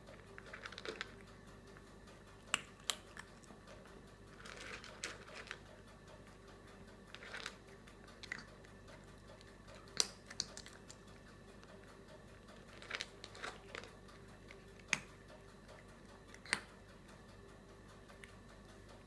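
Cat eating from a bowl: faint chewing with sharp, irregular clicks, one at a time or in short clusters, every second or two.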